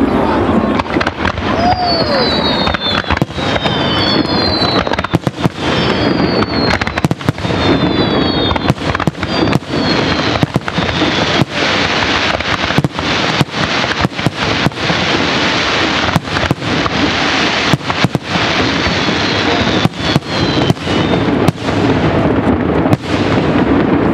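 Professional fireworks display: a rapid, dense run of aerial shell and comet bursts, many sharp bangs in quick succession over a steady crackle. A few thin falling whistles come through in the first half and again near the end.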